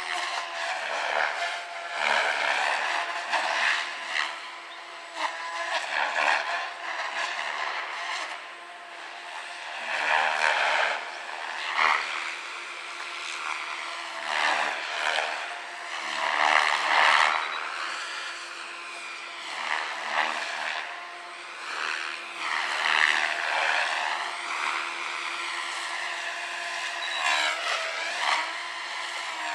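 SAB Goblin 570 electric RC helicopter in flight: a continuous motor-and-rotor whine whose pitch holds nearly steady while the loudness swells and dips every few seconds, the ESC governor holding the head speed constant.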